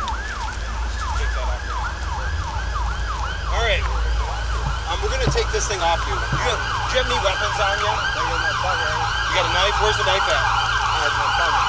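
Emergency vehicle siren in a rapid yelp, fast falling sweeps about four a second, switching into the yelp from a steady tone at the start and growing louder.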